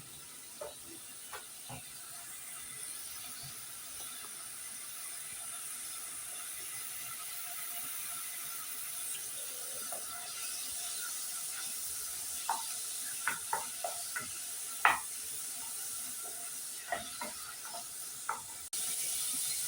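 A cooking pot on the stove hissing and sizzling steadily, gradually growing louder and jumping louder near the end, with scattered sharp clicks and taps, thickest in the second half.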